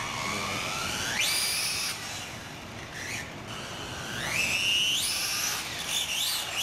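Radio-controlled Losi TEN-SCTE short-course truck accelerating hard: its motor and 3D-printed polycarbonate pinion gear whine, climbing steeply in pitch. There are two long rising runs, one at the start and one from about three and a half seconds in, and a shorter burst near the end.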